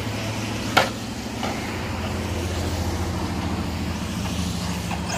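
A steady low engine hum with a sharp click about a second in and a fainter one shortly after.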